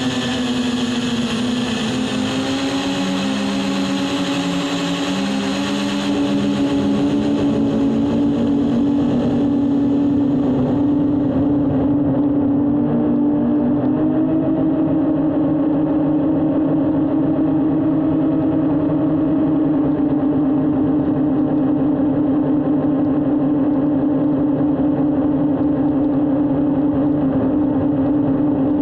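Drone's electric motors and propellers humming steadily, the pitch wavering up and down in the first several seconds and then holding level.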